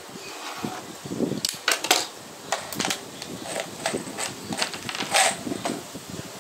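Black screws rattling out of a plastic bottle into a gloved hand and dropping onto a plywood panel, with a plastic speed square set down on the board: an uneven run of sharp clicks and clatters.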